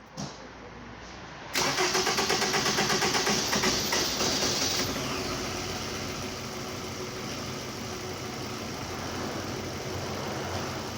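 2009 Toyota Camry engine being cranked by the starter, a rapid pulsing crank lasting about three seconds, then catching and settling into a steady idle. The long crank comes with a fuel pump assembly the mechanic judges faulty, causing long cranking and rough idling.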